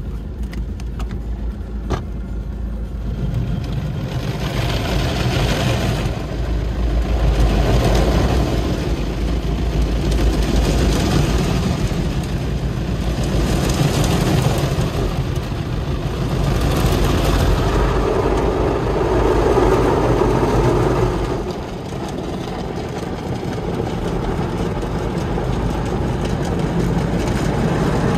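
Tunnel car wash machinery working over a car: rushing, hissing washes that swell and fade every few seconds over a steady low rumble, with a brief drop about three-quarters of the way through.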